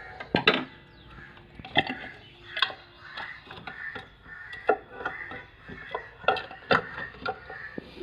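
Sharp metal clinks and knocks, a few seconds apart, from a scooter's kick-starter shaft being worked out of the engine case by hand.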